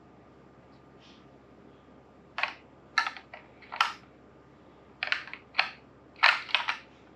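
Hard plastic clicking from a DX Blazer Brace transformation toy being handled: about ten short, sharp clicks in irregular groups, starting a couple of seconds in.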